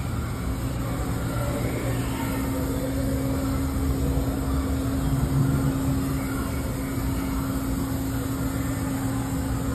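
Steady low rumble with a constant hum.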